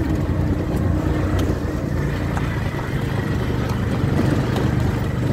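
A tricycle's motorcycle engine running steadily under way, with a continuous low rumble and road noise from a gravel road.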